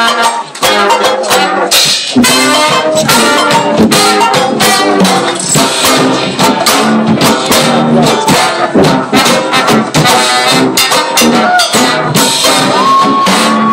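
Live band playing a jazz-blues number, with banjo, drums and brass horns.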